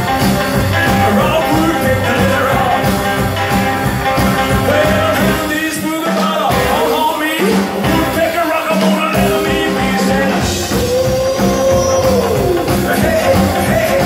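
Live rockabilly band playing an up-tempo rock and roll number on acoustic guitar, upright bass, electric guitar and drums. About six seconds in the bass and drums stop for roughly three seconds in a break, then the full band comes back in.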